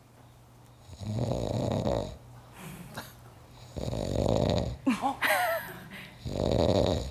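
A person snoring loudly: three long rasping snores about two and a half seconds apart. The sound is made by the throat's soft tissue, the uvula, soft palate and tongue root, vibrating as air passes.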